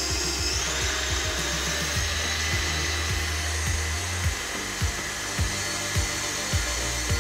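KitchenAid stand mixer's motor running with its wire whisk whipping egg whites and sugar for meringue. The whine steps up in pitch about half a second in as the speed is turned up, then holds steady.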